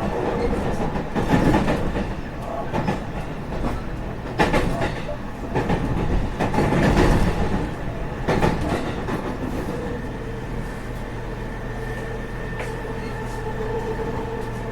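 Running sound inside a JR West 207 series 1000 electric train with Toshiba GTO inverters, slowing into a station: the wheels knock over rail joints and points, and about ten seconds in the train comes to a stand, leaving a steady electrical hum.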